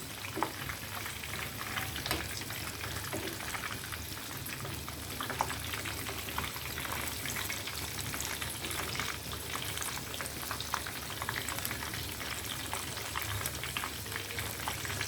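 Breaded chicken rolls shallow-frying in hot oil in a pan: a steady sizzle dotted with many small crackling pops.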